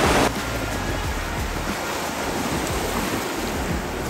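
Surf washing and breaking on the beach, with wind buffeting the microphone. A louder rush cuts off abruptly just after the start, then a steady wash of waves continues.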